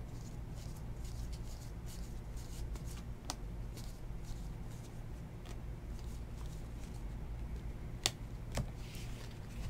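Stack of 2019 Topps Series 2 baseball cards being flipped through one by one by hand, making faint, irregular ticks and slides of card on card. A sharper tap comes about eight seconds in as the cards are set down on a pile.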